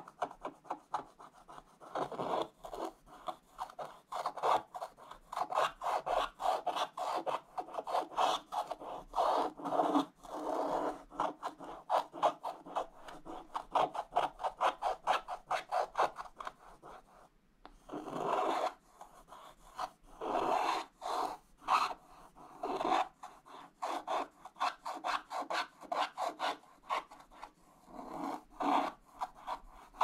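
Wooden stylus scratching the black coating off a scratch-art page in rapid, continuous back-and-forth strokes, with a short break a little past halfway.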